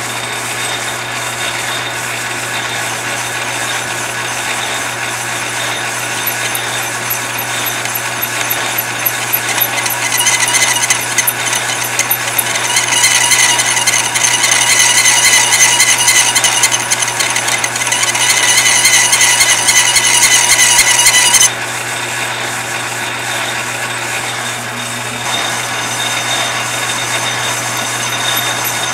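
Metal lathe running, its cutting tool turning a spinning brass pin. From about ten seconds in the cut grows louder with a high squeal, then stops suddenly about two-thirds of the way through as the tool comes off, leaving the lathe running with a lighter cutting noise.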